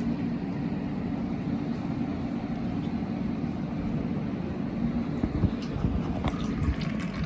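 A steady low hum, with a few faint knocks and clicks about two-thirds of the way through.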